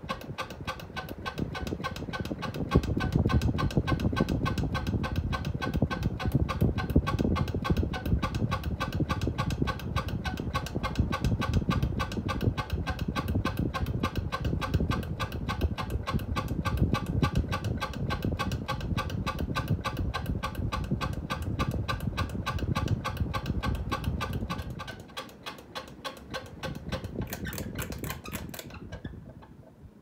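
Hunter Coastal Breeze 44-inch ceiling fan running at high speed, with a rapid, even ticking of about five clicks a second over a low rumble. The rumble drops away near the end, and the ticking stops just before the close.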